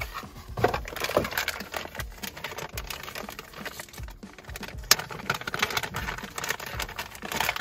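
Packaging handled and opened by hand: a cardboard box being opened, then a plastic bag crinkling and rustling, with irregular crackles and taps throughout and one sharp crack about five seconds in.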